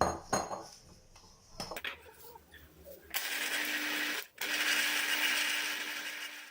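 A few light knocks and clinks of setting up, then an electric juicer's motor starts about three seconds in and runs steadily with a constant hum, squeezing lemons; it stops briefly a little after four seconds and starts again.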